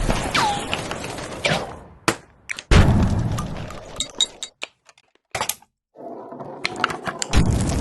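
Designed battle sound effects: heavy explosion-like impacts, the first with a short falling whine and a second about three seconds in, followed by scattered clinks and shattering debris, then a brief gap and another heavy hit near the end.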